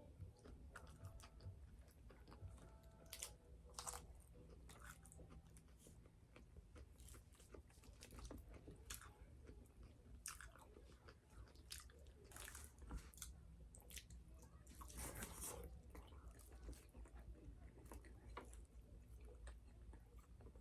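Close, faint crunching and chewing of crispy fried chicken: irregular crackles of the breaded skin being bitten and chewed, with a few louder crunches along the way.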